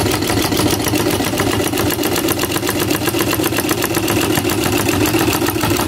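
Yamato ordinary straight-stitch sewing machine running at a steady speed, stitching through denim with a rapid, even clatter of the needle strokes. It is the test run after resetting the hook timing, and it sews without skipped stitches.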